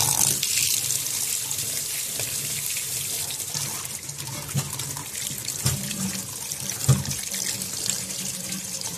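Kitchen tap running steadily onto eggs held in the hand as they are rinsed, splashing into a stainless steel sink. A few soft knocks come about halfway through and shortly after.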